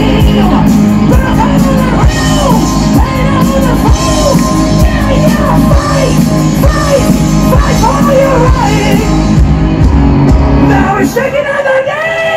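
Live band music with a lead singer over bass and drums. About a second before the end the bass and drums drop out and the singer holds a single long note.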